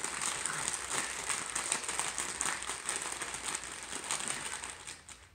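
Sealed Lay's Classic potato chip bags squeezed and crinkled by hand: a dense, continuous crackling of the foil-lined plastic that starts abruptly and stops near the end.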